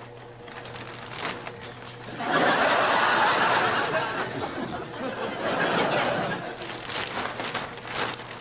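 Studio audience laughter, breaking out about two seconds in and swelling again in a second wave a few seconds later, with small clicks and rustles between.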